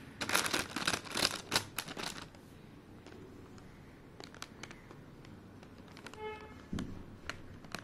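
Shiny plastic foil surprise bag crinkling under fingers: a dense burst of crackling for about two seconds, then scattered lighter crackles and taps as the bag is pressed and pointed at.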